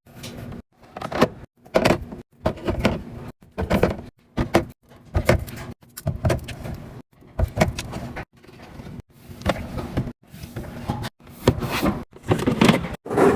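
Restocking handling sounds: packaged items and containers being set down, clattering and rustling as they are put away. The sounds come in short pieces that break off into brief silences several times.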